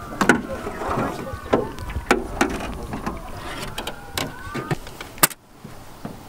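Wooden-handled paddles knocking against the side of an aluminum jon boat during paddle strokes: sharp, irregular knocks about once a second over the wash of the water. A last sharp click comes a little after five seconds, and it is quieter after that.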